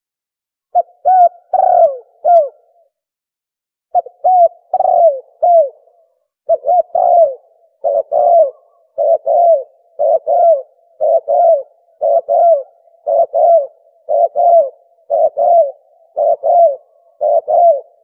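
Recorded spotted dove (tekukur) call played back as a hunting lure: short phrases of two to four falling coos. After a pause near the start, the phrases repeat about once a second.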